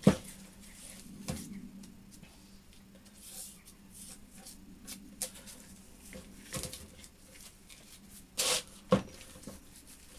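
Heavy metal machine vise being handled on a workbench: a few sharp metal knocks and clunks as its parts are moved and set down, the loudest right at the start, with gloved-hand rustling between and a faint steady hum underneath.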